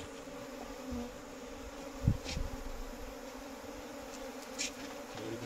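A mass of Indian honeybees (Apis cerana indica) buzzing steadily as a low, even hum, with a single dull thump about two seconds in.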